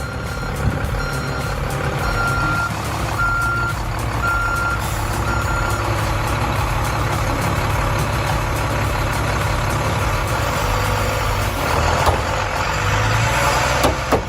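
A heavy vehicle's reversing alarm beeps six times, about once a second, over the steady running of its engine. The engine grows louder and harsher near the end.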